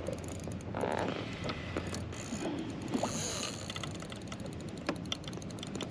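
Spinning reel being cranked against a hooked fish, its gears ticking in quick runs.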